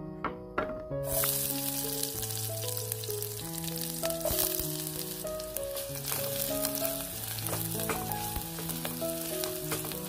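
Sliced shallots frying in hot oil in a pan, sizzling steadily while a wooden spatula stirs them. The sizzle starts abruptly about a second in.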